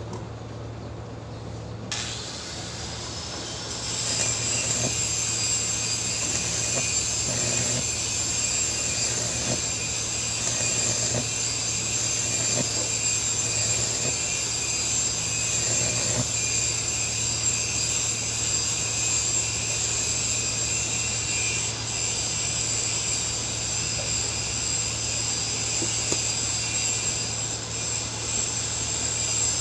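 Angle grinder spinning up about two seconds in, then grinding steel with a steady high whine over a constant low hum.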